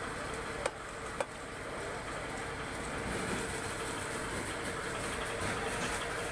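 Steady din of a busy market with a faint hum, broken by two sharp knocks about half a second apart near the start, from fish pieces being worked on a floor-mounted curved cutting blade (boti).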